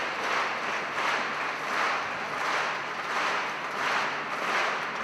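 Concert audience applauding, heard from backstage, the clapping swelling and easing in a steady rhythm about every two-thirds of a second, as when a hall claps in unison.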